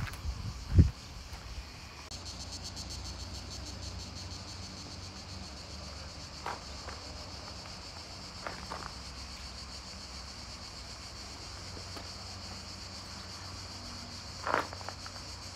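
Steady, high-pitched insect chorus with a fine rapid pulse, coming in about two seconds in. A loud low thump comes just before it, under a second in.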